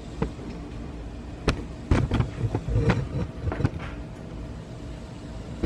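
A few scattered sharp clicks and light knocks of handling, most of them bunched between about two and four seconds in, over a low steady background hum.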